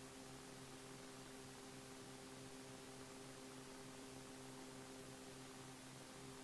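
Near silence: a faint steady hiss with a low electrical hum, the background noise of the radio recording between transmissions.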